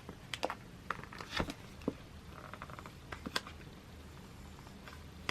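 Sticker seal being peeled off album packaging: faint scattered clicks and light crackling, with a quick run of tiny ticks about two and a half seconds in.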